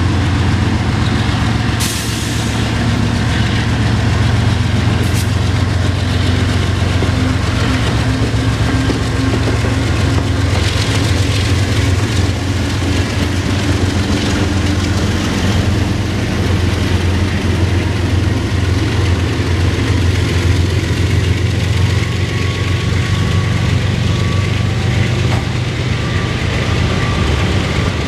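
CSX freight train passing close by: its diesel locomotives run with a loud, steady low drone, then the freight cars roll past on the rails. Two sharp clanks come about two and five seconds in.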